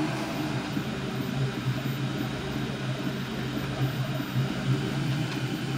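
3D printer with a Bowden-fed E3D hot end printing: its stepper motors hum in quick-changing pitches as the head moves, over a steady fan hiss.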